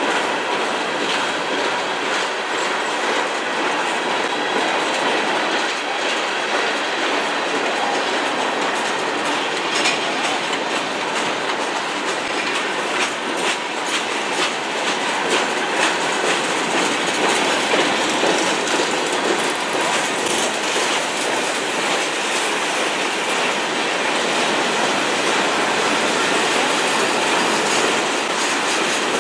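CN freight train cars rolling past, with a steady noise of steel wheels on rail and a run of clicks as the wheels cross rail joints.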